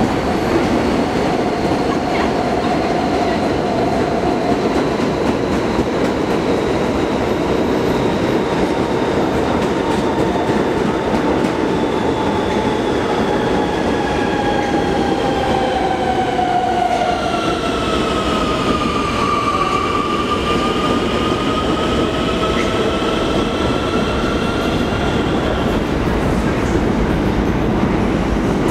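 New York City Subway trains running through an underground station: a steady, loud rumble of wheels on rail, with whining tones that slide down in pitch and then back up a little after the middle.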